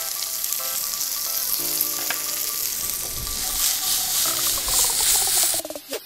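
Chopped mustard stalks sizzling in hot mustard oil in a frying pan as spices are sprinkled in and the pan is tossed, with faint background music. Near the end the sizzle cuts off suddenly and music with a beat takes over.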